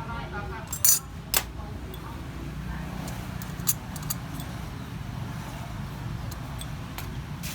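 A few sharp clinks of tableware, two loud ones about a second in and fainter ones a few seconds later, over a steady low hum of background traffic.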